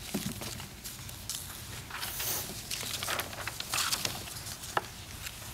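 Sheets of paper rustling and shuffling as documents are sorted and handed over, with a sharp tap near the end.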